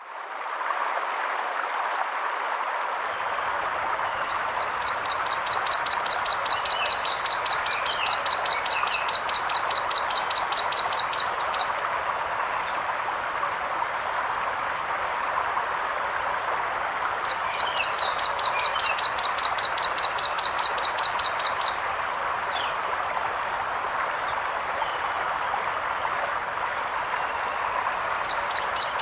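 A forest river flowing steadily, fading in over the first second, with birds chirping. A fast, high, pulsing trill of about six beats a second comes in for two long bouts and starts again near the end.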